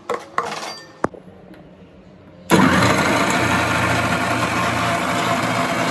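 A few knocks and clicks, then an electric kitchen mixer grinder with a steel jar starts suddenly about two and a half seconds in. It runs with a loud, steady whir as it grinds wet tomato and ginger into a paste.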